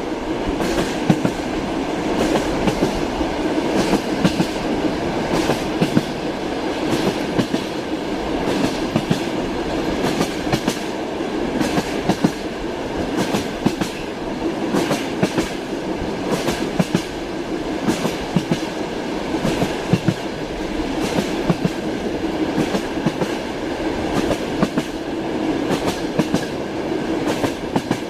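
Train wheels clattering over rail joints in repeated sharp clicks, over the steady running rumble of a moving train car.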